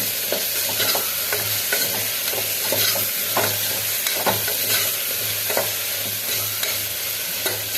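Potatoes and onion-tomato masala frying in oil in a pressure cooker and being stirred. A steady sizzle runs under repeated short scrapes against the pot.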